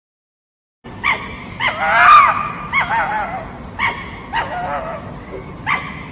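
A dog giving a string of short, pitched yips and whines, starting about a second in, with one longer whine among them.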